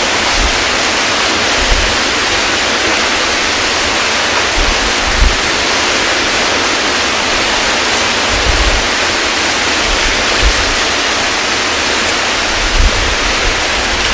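Hurricane wind and heavy surf: a loud, steady rush of noise, with low gusts buffeting the microphone every few seconds.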